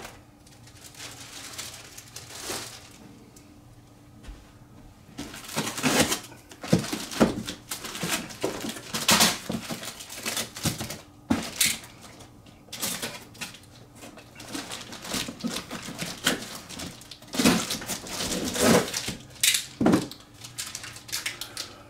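Packaging rustling and crinkling as parts of a large radio-controlled model airplane kit are unpacked, with knocks from parts being handled. It starts faintly and gets busier about five seconds in.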